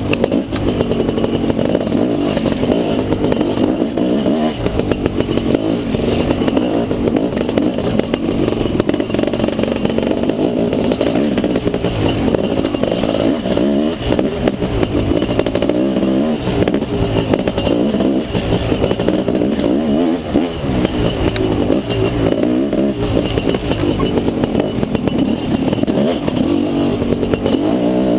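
Dirt bike engine heard from on board while being ridden hard along a trail, its revs rising and falling over and over without a break.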